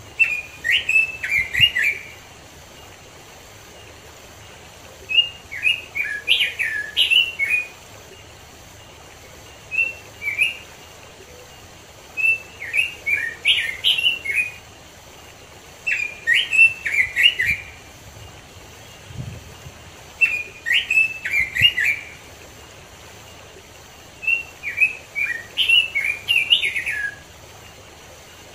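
Red-billed leiothrix (Pekin robin) singing: short phrases of quick, clear warbled notes, each a second or two long, repeated about every three to four seconds, seven times, over a faint steady rush of stream water.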